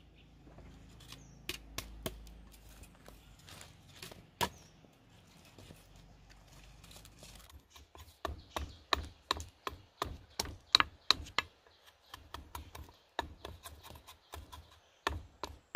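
A large knife chops the skin off a green papaya on a wooden chopping block in short downward strokes, each a sharp knock. The strokes come singly at first, then in a steady run of about three a second in the second half.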